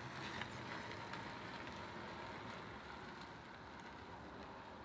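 Xiaomi M365 electric scooter rolling away over block paving, a faint steady running noise that slowly fades, with a few small clicks in the first second.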